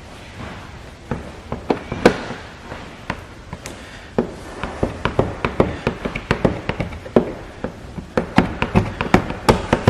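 Paint protection film being worked into a plastic bumper corner by hand and squeegee: an irregular run of small sharp clicks and taps, sparse at first and coming thicker and faster from about halfway through.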